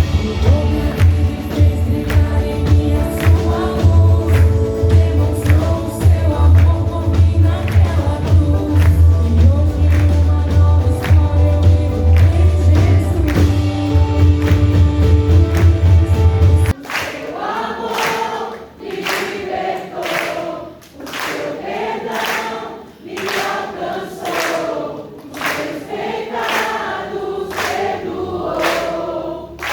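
Gospel worship song: a group of singers over a band with a heavy bass line. About 17 seconds in, the band cuts off abruptly and the voices carry on alone, a cappella.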